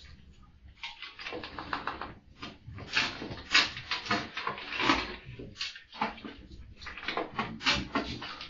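Close-up sounds from a Samoyed dog: a rapid, irregular run of short, rough noises, loudest in the middle.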